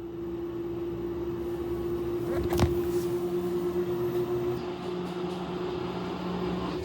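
Samsung washing machine running with a steady motor hum, shaking abnormally, with one sharp knock about two and a half seconds in.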